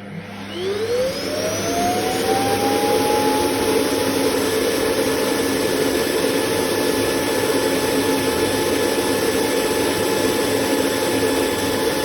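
Vexilar W11 robot vacuum's suction motor spinning up with a rising whine over about the first two seconds, then running steadily and loudly.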